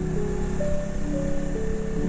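Music: a melody of held notes, changing pitch about every half second, over a steady low backing.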